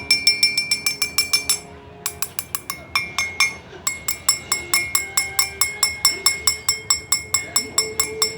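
Rapid high-pitched ringing 'ting ting' strikes on a small ringing object, about five or six a second, pausing briefly twice.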